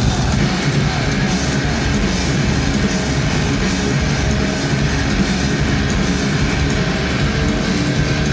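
Heavy metal band playing live: distorted electric guitars through Marshall amp stacks and a drum kit, a steady loud wall of sound heard from within the audience.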